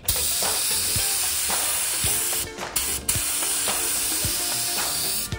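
Paint spray gun hissing as it sprays blue paint along the taped edge of a pattern, with two brief breaks in the spray about two and a half and three seconds in.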